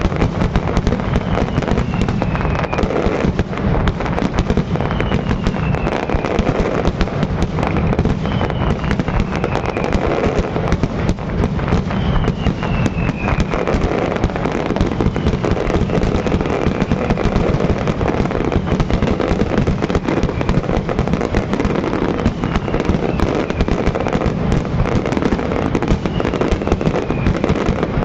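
Fireworks display in a dense, continuous barrage: shells and mortars bursting and crackling without pause, loud throughout. A faint short falling tone recurs every couple of seconds.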